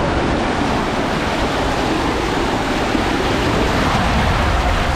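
Steady, loud rushing of water pouring through an enclosed body waterslide tube as a rider slides down it, heard close from inside the tube.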